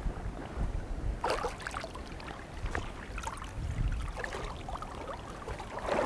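Shallow seawater lapping and trickling over rocks, with small irregular splashes and a low rumble of wind on the microphone.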